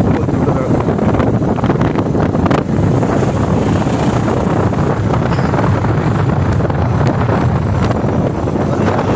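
Steady wind rush buffeting the microphone of a moving motorbike, with the bike's running and road noise underneath.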